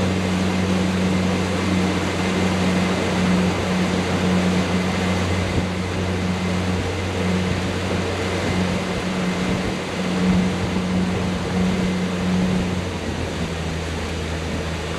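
Boat engine running at a steady cruising speed, a low hum over the rush of wind and water. Its pitch drops slightly near the end.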